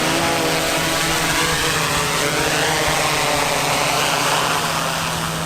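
Steady, loud engine or motor noise that runs without pause, with a faint sweeping shift in its pitch.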